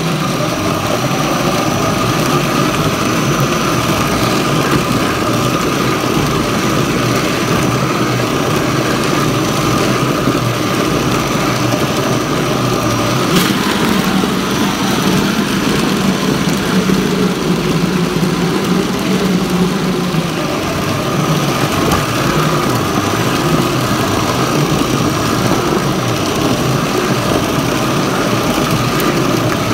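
Electric meat grinder with a spinning steel bowl running steadily, churning minced meat into a smooth paste. A single sharp click about 13 seconds in.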